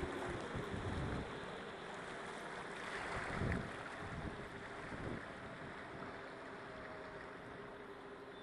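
Small motorboat under way on a canal: water rushing and splashing along the hull, with wind buffeting the microphone, gustiest in the first second or so and again near the middle.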